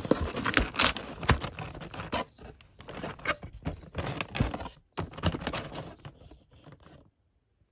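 Rustling, tapping and clattering of cardboard packaging and boxed cosmetics being handled in a cardboard mailer box, in quick irregular clicks. It is busiest in the first couple of seconds, thins out, and cuts to dead silence near the end.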